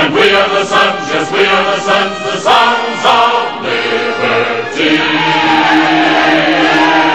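Men's chorus with band accompaniment ending a march song: rhythmic beats and moving chords, then a long held final chord from about five seconds in, with voices calling out over it.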